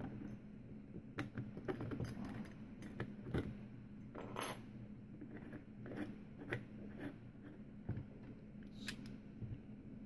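Small metallic clicks and scrapes as a mortise lock cylinder is turned and threaded by hand into a brass mortise lock case, with one sharp, louder metal clink about four and a half seconds in.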